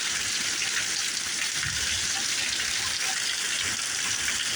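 Heavy thunderstorm rain pouring down in a steady, dense hiss.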